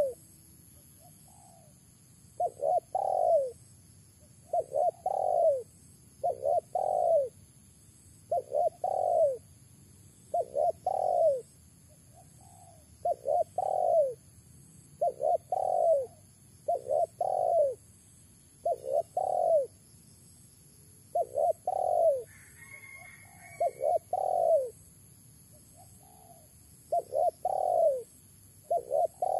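Spotted dove cooing over and over: short phrases of two or three coos, each note rising and then falling in pitch, repeated about every two seconds.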